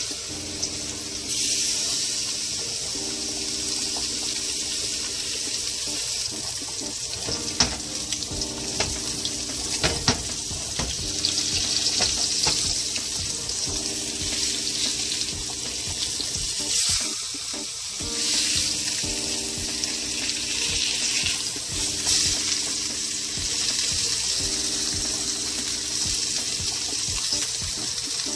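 Salmon fillets sizzling steadily in hot oil in a sauté pan, with a few sharp clicks now and then.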